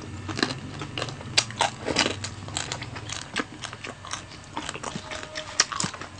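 Close-up biting and chewing of crispy lechon (whole roast pig) skin: a quick, irregular run of sharp crunches.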